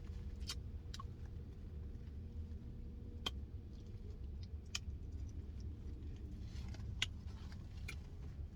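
Steady low hum of a car with its engine running, heard from inside the cabin, with a few small sharp clicks and taps scattered through it from something being handled.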